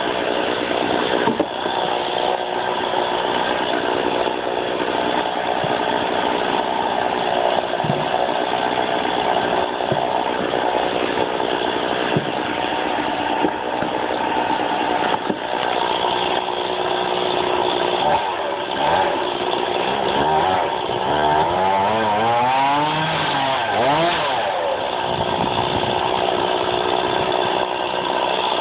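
Stihl MS 460 Magnum two-stroke chainsaw running as logs are cut to firewood length. In the second half the engine note rises and falls several times.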